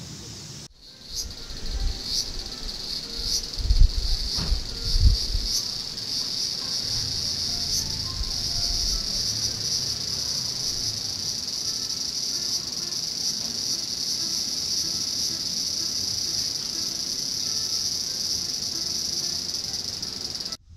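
Summer insects, most likely cicadas, shrilling in a steady, high, unbroken chorus that starts about a second in and holds level. A few low thumps come in the first few seconds.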